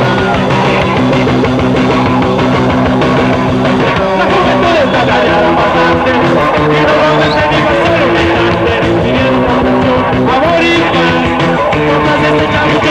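A live rock band playing loudly and steadily, with electric guitar, bass and drums.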